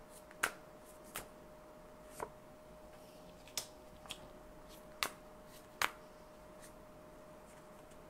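Tarot cards being handled and drawn from the deck: about seven sharp card snaps and flicks, spaced irregularly, over a faint steady hum.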